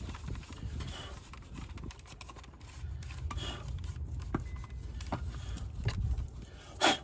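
A rag rubbing and scraping as sawdust and built-up grime are wiped out of the inside of a Stihl MS 192 chainsaw with its side cover off. There are scattered light clicks and knocks, and a sharper knock near the end, over a low background rumble.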